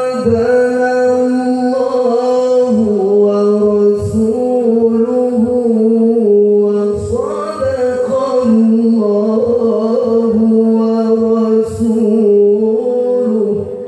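A male qari reciting the Quran in the melodic tilawah style: a single voice holds long notes with winding ornaments, breaking briefly a few times.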